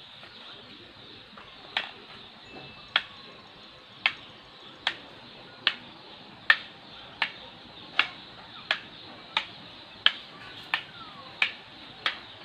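Arnis sticks clacking together in a two-person single sinawali drill: about fourteen sharp strikes, starting nearly two seconds in and coming a little faster, roughly one every three quarters of a second.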